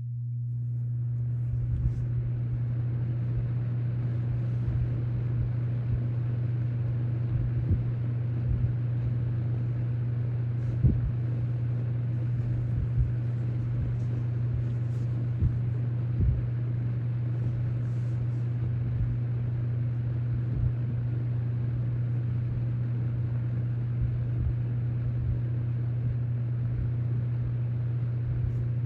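Toastmaster (McGraw-Edison) 20-inch box fan, model 4435, running: a steady low motor hum under the rush of air from its banana-style blades. The air noise builds over the first couple of seconds as the fan comes up to speed, with a few faint ticks along the way.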